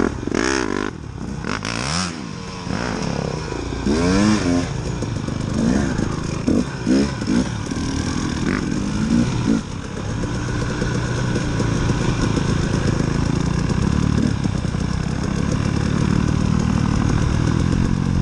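KTM 300 two-stroke dirt bike engine revving up and down in short bursts as the bike pulls away and rides along. From about ten seconds in it runs more steadily under load.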